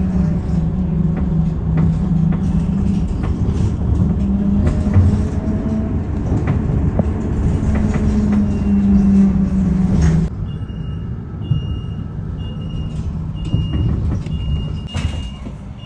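City bus running, heard from inside the cabin as it moves: a steady low engine drone whose pitch shifts slightly. After an abrupt cut about ten seconds in it is quieter, with a short high electronic beep repeating a little faster than once a second.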